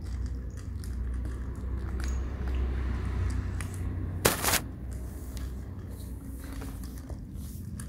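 Kittens and cats crunching dry kibble from plastic bowls: many small irregular crunches and clicks. About four seconds in there is a brief, loud noise.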